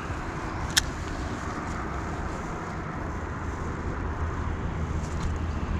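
Steady outdoor rumble with wind on the microphone, and one sharp click about a second in.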